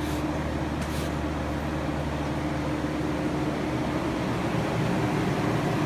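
Steady hum of hog barn ventilation fans running, with a single short click about a second in.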